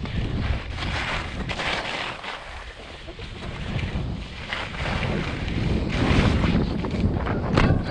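Wind buffeting a camera's microphone on a ski run: a low rumble with a rushing hiss that swells and fades every second or two.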